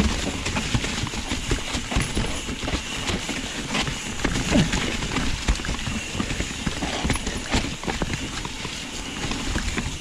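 Trek Remedy mountain bike clattering and rattling as it rides down a rough trail over rocks and roots: a dense, irregular run of knocks and clicks over a steady rushing noise.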